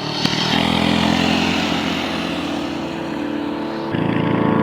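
Small engine running steadily, stepping up in speed about half a second in and again near the end.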